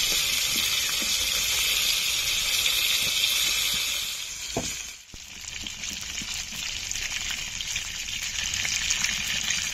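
Pieces of fish sizzling steadily as they shallow-fry in hot oil in a karahi, freshly turned over to fry the second side. The sizzle drops briefly about five seconds in, then carries on quieter.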